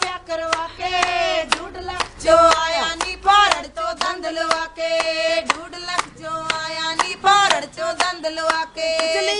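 Women singing Punjabi boliyan, long held sung lines, with rhythmic hand claps keeping the beat.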